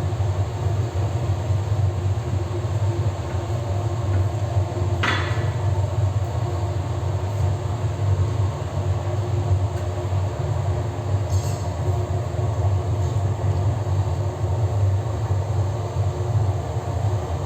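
Gas burner firing into a metal-casting furnace: a steady, low, noisy rush that holds unchanged throughout, with a brief sliding high sound about five seconds in.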